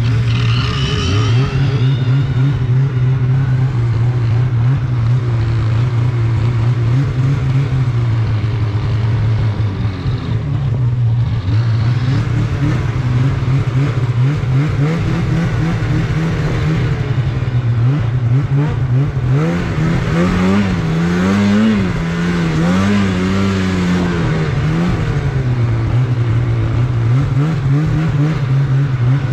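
Snowmobile engine running under throttle while riding. Its pitch mostly holds steady, then rises and falls several times about two-thirds of the way through as the throttle is worked.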